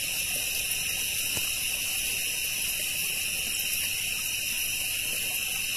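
Steady, shrill chorus of night insects such as crickets, sounding in high bands without a break.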